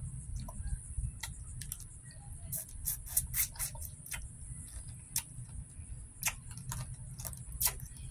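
Wet mouth sounds of someone eating boiled blue crab: irregular lip smacks and sucking clicks as meat and seasoning are sucked off the fingers and shell, over a steady low rumble and high hiss.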